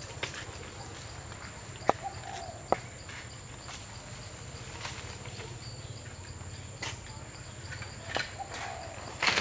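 Quiet outdoor ambience around a small group of long-tailed macaques. There are scattered sharp clicks and snaps and two short, soft squeaks over a steady high whine, and a louder rustle comes near the end.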